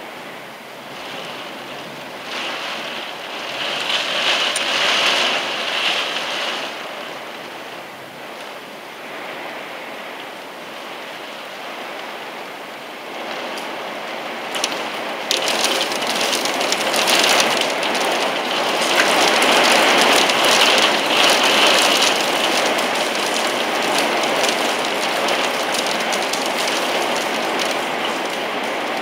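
Heavy rain pouring down in gusty wind, a steady hiss that swells twice: once about four seconds in and again from about fifteen seconds, loudest around twenty seconds.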